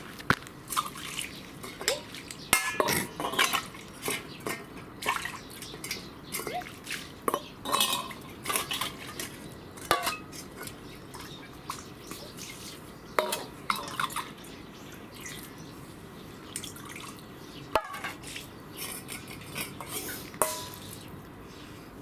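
Irregular light clicks and taps of small hard objects, like dishes or utensils knocking together, with a few louder sharp clicks.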